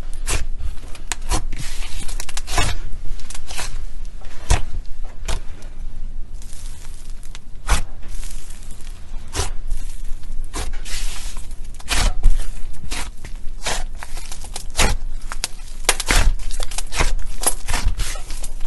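Slime being squished and worked by hand, giving irregular sharp clicks and crackles.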